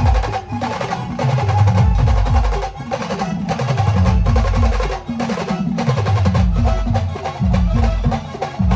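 A live band playing a fast percussion-driven rhythm: heavy bass-drum strokes and sharp snare and wood-block-like hits under a melody line.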